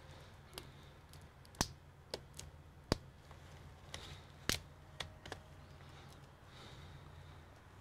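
Sharp plastic clicks and light taps as a laptop battery is plugged into its connector and set down into the chassis: about nine over the first five seconds, three of them louder. A low steady hum runs underneath.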